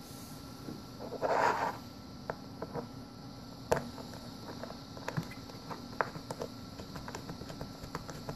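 A small screwdriver turning the little screws back into the top plate of an Audio-Technica AT8416 microphone shock mount: a short rustle about a second in, then scattered light clicks and ticks.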